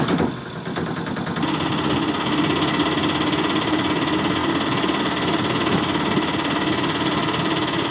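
Small battery-powered DC toy motor running steadily with a buzzing whir.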